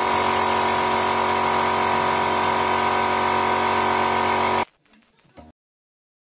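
Small electric air compressor running, a steady even drone with a fixed whine, stopping abruptly about two-thirds of the way through.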